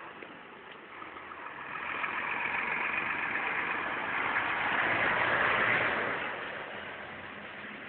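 Road traffic: a car drives past close by, its noise swelling over a few seconds, loudest about five to six seconds in, then fading away.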